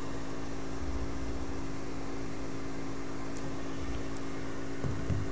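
Steady background hum with a constant low tone and low rumble, the sound of a room's ventilation or electrical noise, with a couple of very faint ticks.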